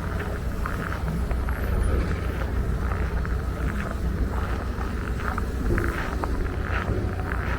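Footsteps crunching in cold, dry snow at an even walking pace, about two steps a second, over a steady low rumble.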